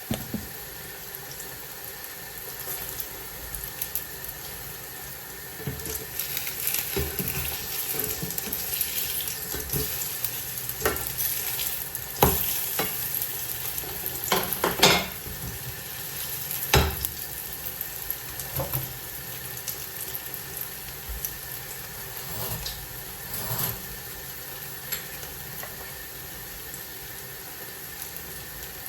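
Syrniki (cottage cheese pancakes) frying in oil in a pan, a steady sizzle. In the middle come a few sharp clicks and knocks against the cookware.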